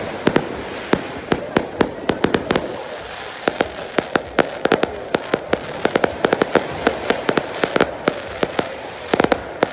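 Fireworks going off: an irregular run of sharp bangs and cracks, several a second, coming thicker in the second half.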